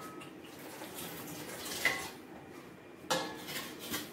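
Dishes being washed by hand in a steel kitchen sink, utensils clinking and clattering against each other and the sink. There is one sharp clink with a brief ring about two seconds in, and a quick run of clatters near the end.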